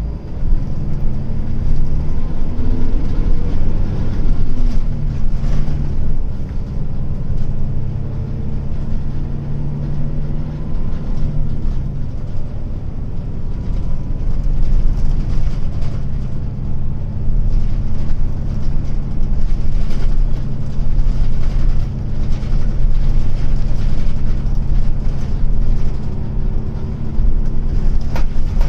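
Hino Blue Ribbon long-body city bus engine heard from inside the cabin, running under way with road noise. Its pitch rises and then drops at a gear change a few seconds in, after which it runs steadily. This bus is known as an odd-sounding one, its engine note differing slightly from a standard Blue Ribbon's.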